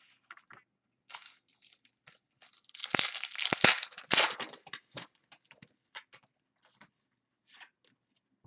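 Trading-card pack wrapper being torn open by hand: a few small rustles, then a dense crinkling rip about three to four seconds in, followed by scattered crinkles and clicks as the wrapper comes off and the cards are handled.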